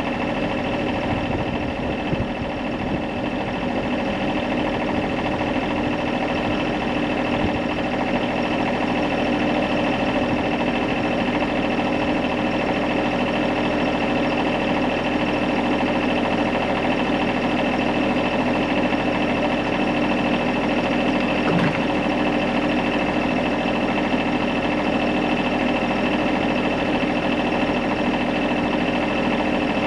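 An engine running steadily at a constant speed, a droning hum with no change in pitch.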